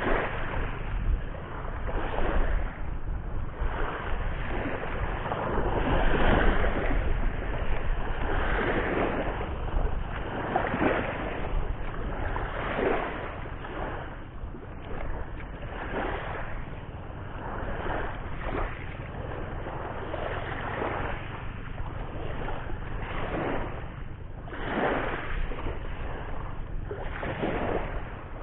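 Sea surf washing and splashing against the shore in irregular surges every second or two, with wind rumbling on the microphone.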